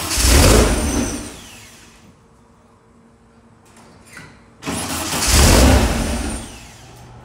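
Powerhaus 1914cc air-cooled VW flat-four on dual 44 IDF Webers being started cold, twice: each time it catches with a loud burst, runs for a second or two, then falls off and dies. This is typical of a flooded dual-carb engine cranked without the throttle held open.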